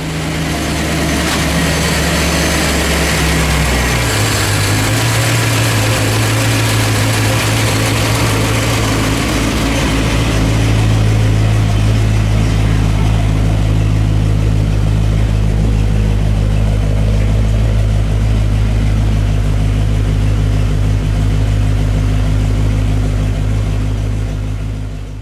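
Hemi V8 engine of a 1956 Dodge Custom Royal Lancer idling steadily. Its note drops a little about four seconds in, then holds.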